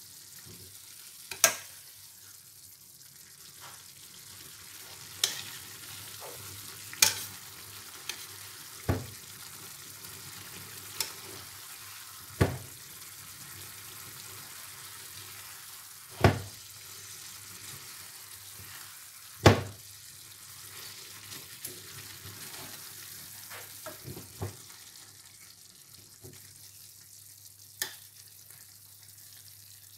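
Eggplant slices in tomato sauce sizzling steadily in a stainless steel pan over lowered heat. A utensil knocks sharply against the pan now and then, every few seconds, as the sauce is worked into the slices.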